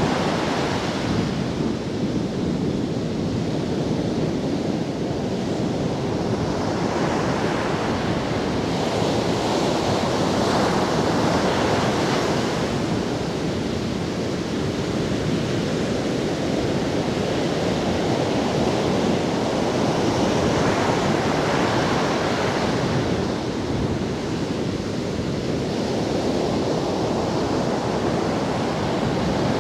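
Sea surf breaking on a sandy beach: a continuous rush of water that swells every several seconds as waves break and wash up the sand.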